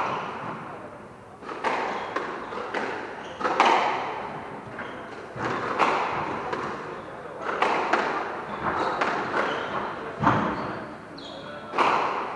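Squash rally: the ball is struck by rackets and thuds off the court walls every second or two, each hit echoing around the court. Shoes squeak briefly on the wooden floor between shots.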